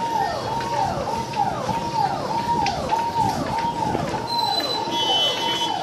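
Electronic siren of a security-force vehicle, repeating a fast cycle: each note jumps up, holds briefly, then sweeps down, about one and a half cycles a second.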